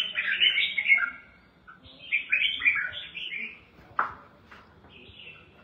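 Red-whiskered bulbul singing: two bursts of quick chirped and warbled notes, a few faint notes after them, and a single knock about four seconds in.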